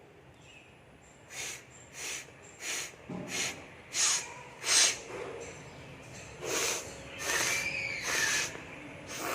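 A woman blowing her nose hard: six short, sharp blasts in quick succession, then three longer blows near the end.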